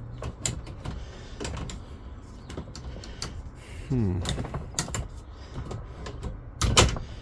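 Hard plastic clicks and knocks of a Milwaukee Packout tool box being worked out of its floor mount, with one loud knock near the end.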